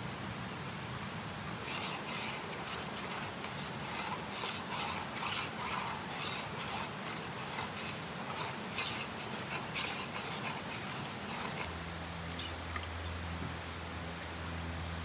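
Food sizzling and crackling in a frying pan on a propane camp stove as it is stirred, over a steady hiss. About three-quarters of the way through the crackling thins out and a steady low hum takes over.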